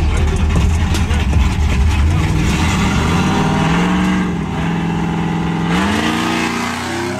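A truck's engine revving hard and held at high revs. Its pitch climbs in two steps, about two and a half seconds in and again near six seconds, over a loud rush of noise.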